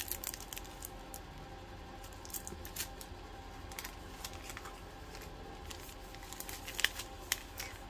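Small plastic-wrapped beauty supplies handled on a table: a few faint, scattered clicks and light packaging rustles over a steady background hum.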